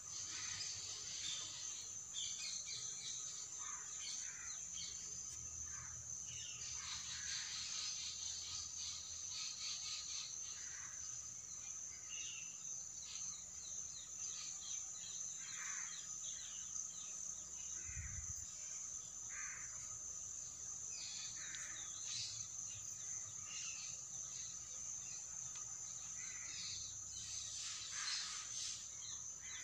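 Birds calling in short scattered bursts over a steady, high-pitched insect buzz.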